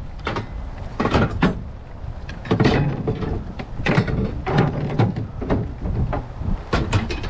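Salvaged items being loaded into a pickup truck bed: a string of irregular knocks and clatters as the objects are set down and shifted.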